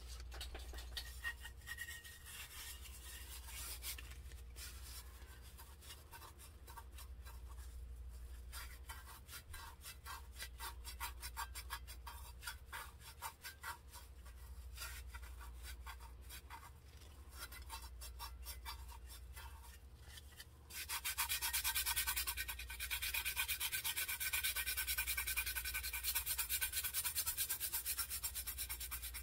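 Gloved hand rubbing and pressing hard over a glittered tumbler: a fast run of scratchy strokes that grows louder and harsher about two-thirds of the way in.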